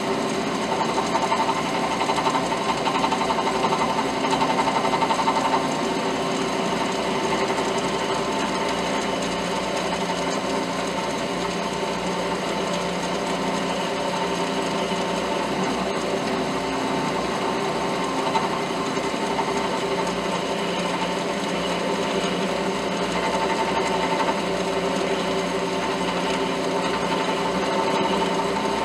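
Drill press running steadily, spinning a cut-off bolt in its chuck while a small triangle file is held against it, filing a V-groove into the bolt.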